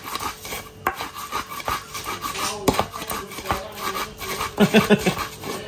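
Spice paste of coriander and garlic being ground in a Javanese cobek mortar with an ulekan pestle: irregular scraping and grinding strokes with small knocks of the pestle against the mortar. A brief pitched sound comes about five seconds in.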